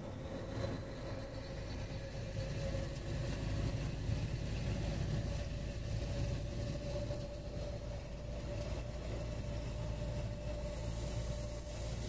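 Vehicle running at steady cruising speed, heard from inside the cab: low engine and road rumble with a steady hum held on one pitch.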